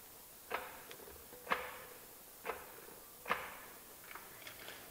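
Massey Ferguson 135 rear axle shaft turned by hand at the hub while its bearings are drawn in, so the rollers seat: four metallic clunks about a second apart, the first with a faint ring, then a few light ticks near the end.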